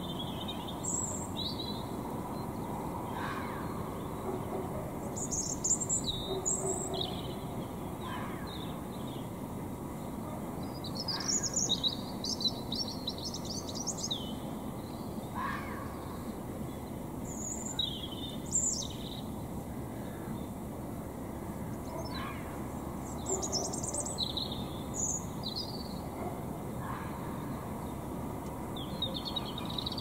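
Birds singing before dawn: short, varied high phrases repeated every second or two, over a steady hum of distant suburban traffic. A few fainter, lower calls come at irregular intervals.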